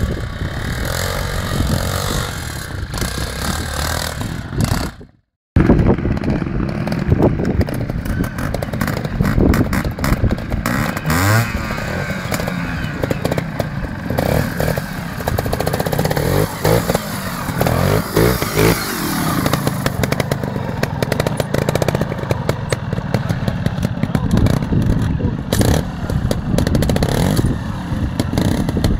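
Trials motorcycle engine blipping and revving up and down as the bike is ridden slowly over rocks, with clatter on the stone. The sound drops out completely for a moment about five seconds in.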